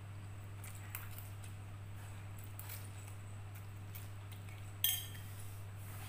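Instant fried noodles being slurped and chewed, with faint small ticks, then about five seconds in a single sharp, ringing clink as a metal fork is set down on a ceramic plate.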